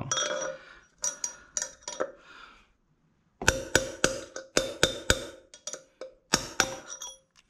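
Hammer striking a steel drift to drive the old wheel bearing out of a motorcycle's rear wheel hub: sharp metal-on-metal strikes with a ringing tone, a few a second. There are two runs of blows with a pause of about a second between them.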